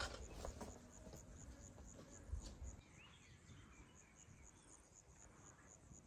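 Faint, steady chirping of a cricket, about four chirps a second, over a low rumble. A single soft knock sounds about two and a half seconds in.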